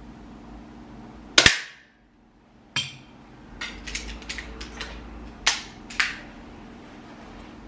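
Airsoft target pistol firing a single shot, a sharp crack about a second and a half in. It is followed by a run of small clicks and then two sharper snaps as the pistol is handled between shots.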